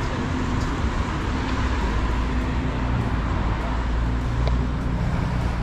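Road traffic: a steady rush of tyres on a wet road with the low hum of vehicle engines, growing louder in the second half as a vehicle passes close by.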